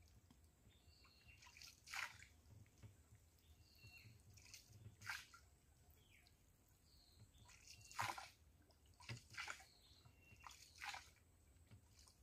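Faint splashes and drips of water every second or few, with near silence between them.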